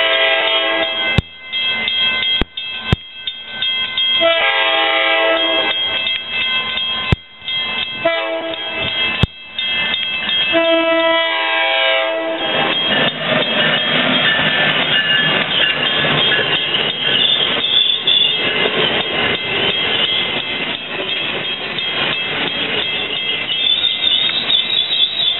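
Amtrak Northeast Regional electric locomotive sounding its multi-chime horn in the long-long-short-long grade-crossing pattern, then the train passing close by at speed with a steady rush of wheels on rail. A few sharp clicks fall between the first horn blasts.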